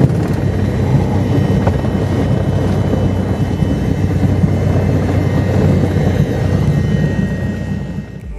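Light aircraft's engine running steadily, heard from inside the cockpit as a dense low drone; it fades out near the end.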